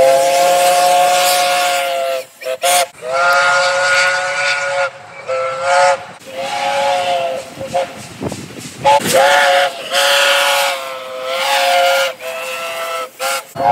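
Train horn sounding a series of loud blasts, long and short, separated by brief gaps, several notes sounding together as a chord, some sagging in pitch as they end. Played back at one and a half times speed, so it sounds pitched up.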